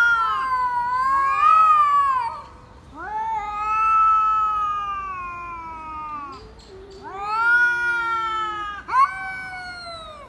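Two cats yowling at each other in a territorial standoff: long, drawn-out, wavering howls of two to three seconds each with short pauses between, two voices overlapping at first, and a short, sharper cry about nine seconds in.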